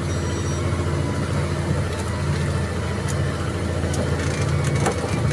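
Loaded truck's diesel engine pulling steadily in second gear, heard from inside the cab as a continuous low drone.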